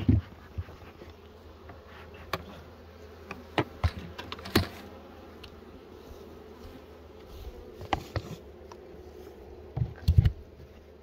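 Honeybees buzzing around an open hive in a steady hum, with sharp knocks and clicks from hive boxes and frames being handled, loudest as a cluster of knocks near the end.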